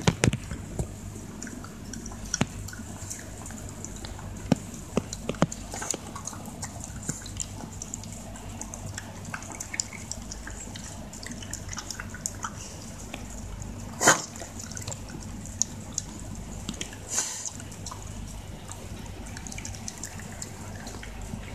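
Shiba Inu eating wet beef dog food from a stainless steel bowl: wet smacking and lapping with many small sharp clicks, one much louder about two-thirds of the way in.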